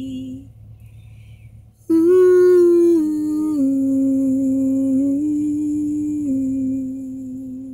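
A woman humming a slow hymn melody a cappella in a few long held notes, starting suddenly about two seconds in and fading toward the end; it follows the tail of her last sung note.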